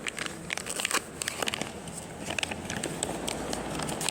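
Crinkling and crackling of a plastic packet of latiao snack being handled: a quick, irregular run of sharp crackles.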